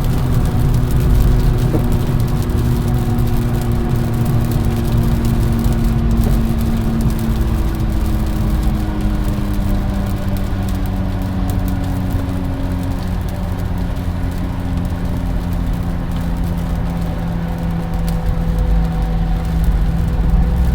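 Car on the move: steady low road and engine rumble with a humming drone whose pitch slowly drops partway through, then holds steady.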